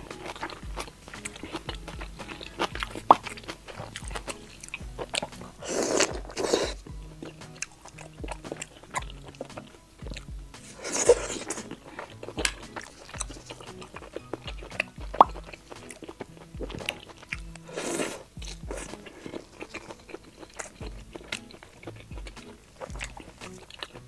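Close-miked chewing and biting of skewered foods from a spicy broth: many small wet clicks, with a few louder bursts at about 6, 11 and 18 seconds in. Background music runs underneath.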